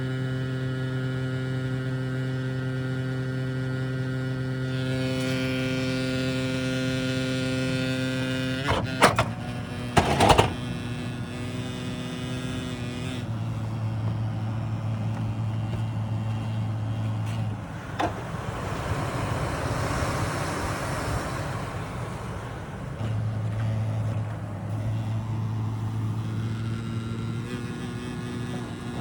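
HVAC equipment giving off a loud, steady electrical buzzing hum, the kind of noise that would drive a listener insane. A few sharp clicks come around nine and ten seconds in; later the hum breaks off and comes back more than once.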